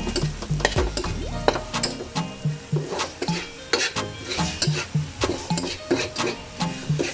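Canned tuna sisig being stirred in a hot frying pan: the utensil scrapes and clicks against the pan many times while the mixture sizzles as it fries dry.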